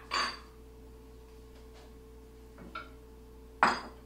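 A few short clinks and scrapes of kitchen dishes, a bowl and a plate, as gloved hands scoop marinade and rub it onto a raw whole chicken; the loudest comes near the end. A faint steady hum runs underneath.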